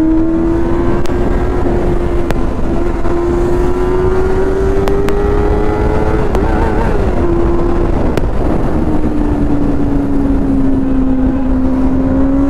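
Benelli 600i's inline-four engine running under way on its stock exhaust. The note holds steady and climbs slowly, then drops after about eight seconds as the revs come down, with wind noise on the microphone.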